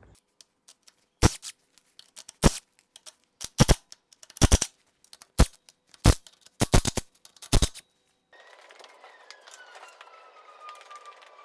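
Cordless impact wrench hammering in short bursts, undoing the big bolts that join a tractor's engine to its gearbox. After about eight seconds the hammering stops and a faint whine falls slowly in pitch.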